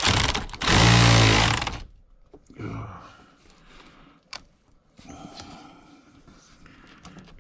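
Handheld power tool motor run in reverse for about two seconds to loosen a battery terminal nut, then faint clicks and handling sounds.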